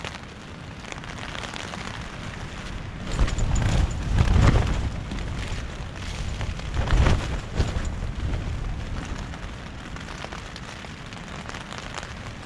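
Gale-force wind gusts battering a Luxe Hexpeak V4A tent, the fabric shaking and rattling under heavy wind rumble. The gusts build about three seconds in and peak at about four and a half and seven seconds.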